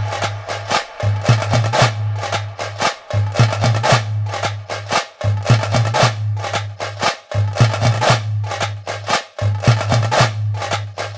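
Background music: fast percussion with many sharp hits over a held low bass note that breaks off briefly about every two seconds.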